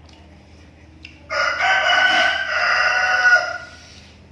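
A rooster crowing once: a single loud call of about two seconds, starting about a second in.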